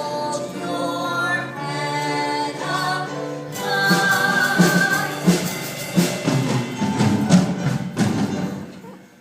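Closing bars of a musical-theatre song: voices sing held notes over the accompaniment for about three and a half seconds, then the music turns fuller with percussion strokes and fades out near the end.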